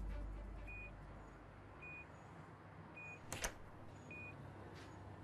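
Hospital patient monitor beeping steadily, one short high beep a little over once a second. A sharp click of the room's door latch comes about three and a half seconds in, as the door is opened.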